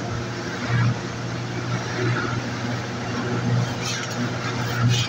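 A motor running steadily, its low hum swelling about every second or so, with two short scrapes about four and five seconds in.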